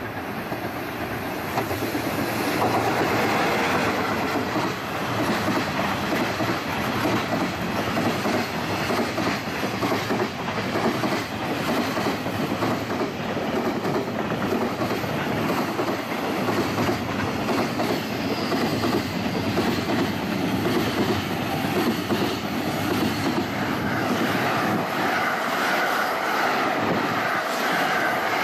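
A long container freight train hauled by an electric locomotive running through the station: a steady rumble of wheels on rail with the rapid clickety-clack of the wagons over the rail joints. Near the end a white express electric train passes close by.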